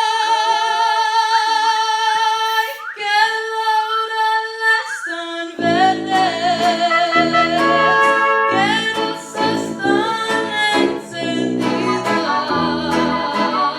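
Mariachi ensemble playing and singing: long held notes with vibrato, then about five and a half seconds in the full band comes in with bass and a rhythmic strummed accompaniment.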